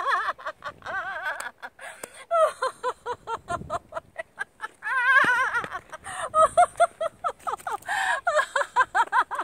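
A woman laughing out loud in fast strings of 'ha-ha-ha' with wavering pitch, stopping briefly a couple of times. This is a deliberate, sustained laughter-yoga laugh.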